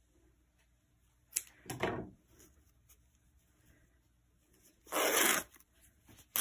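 Scissors snipping into a length of fabric, then the fabric being torn apart by hand along its weave: a short rip about a second and a half in, a louder half-second rip about five seconds in, and another starting at the very end.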